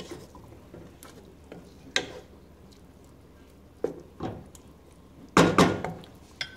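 Wooden spoon stirring beef strips in a metal pot, with scattered scrapes and knocks against the pot. Two loud knocks come about five and a half seconds in.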